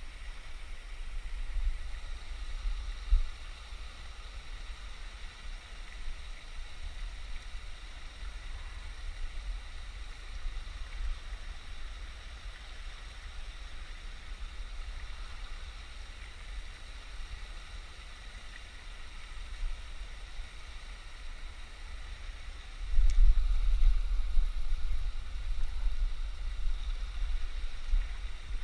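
Wind rumbling on the microphone, much stronger from a little past two-thirds of the way through, over a faint steady hiss of running water.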